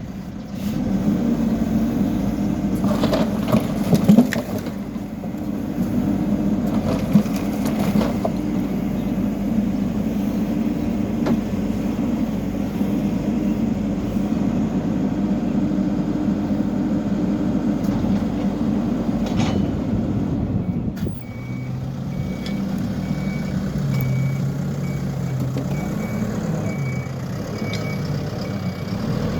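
Hidromek backhoe loader's diesel engine running hard under load, with several sharp knocks and clanks in the first few seconds and one more later. About two-thirds of the way through the engine drops to a lower, uneven speed and a reversing alarm starts beeping steadily.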